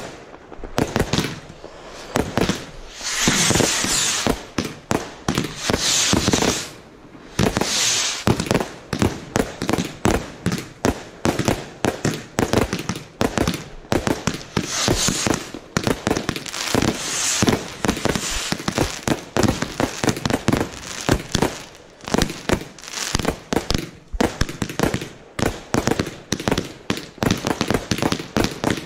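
Consumer firework barrage cakes firing in rapid succession: a dense run of shots and bangs, with several short patches of hiss, the first about three seconds in.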